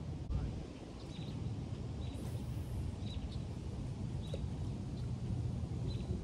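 Outdoor pond-side ambience: a steady low wind rumble on the microphone, with faint short bird chirps every second or so.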